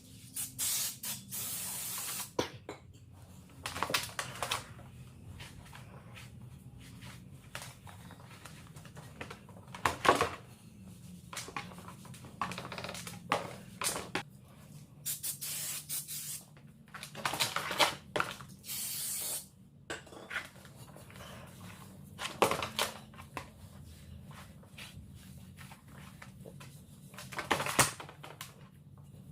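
Aerosol brake cleaner sprayed in repeated bursts, some short and some lasting a second or two, while the hub surface is cleaned before the new rotor goes on. Brief knocks and handling noises fall between the bursts, over a low steady hum.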